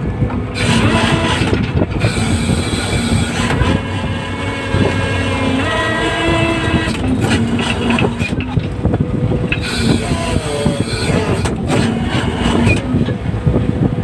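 Fishing vessel's engine running steadily, a loud continuous rumble with a steady drone, with crew calling out faintly over it now and then.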